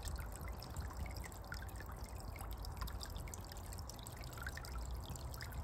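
Small solar-powered three-tier fountain trickling and splashing into a birdbath basin, a steady patter of falling drops, with a low rumble underneath.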